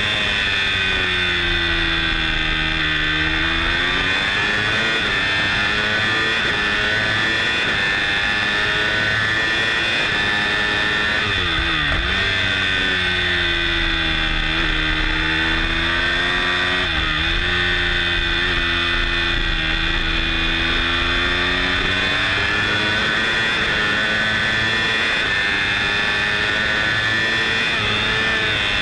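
Moto3 racing motorcycle's single-cylinder four-stroke engine at full race pace, its pitch dropping on braking and downshifts into corners and climbing again on the exits several times, with wind rushing over the helmet-mounted camera.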